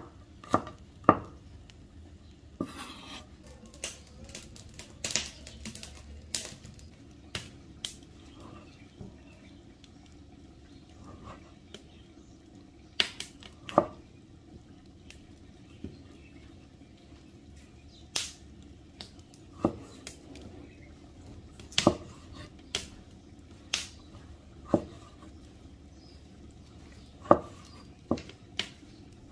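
Irregular sharp knocks and clinks of cooking utensils and cookware, one every second or two, over a faint steady low background noise.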